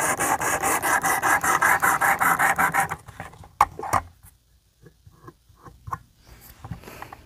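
The coarse 220-grit stone of a Work Sharp Precision Adjust guided sharpener rasping in quick, even strokes, about six a second, across the heel of a knife blade, removing steel to reprofile the edge. The strokes stop about three seconds in, followed by a few light clicks.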